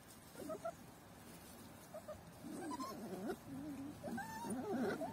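Young puppies whining: a few short, faint squeaks at first, then from about halfway through a louder run of wavering, overlapping whines.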